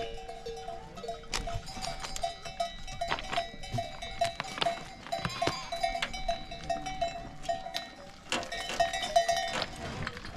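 Bells hung on a flock of sheep clanking as the animals move, many bells of different pitches ringing over one another in short uneven strokes with sharp clinks.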